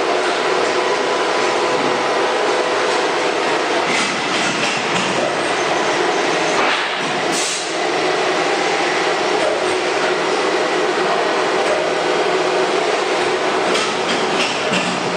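ATC CNC router machinery running: a loud, steady mechanical noise with steady tones in it, and a few brief sharper noises about four, seven and fourteen seconds in.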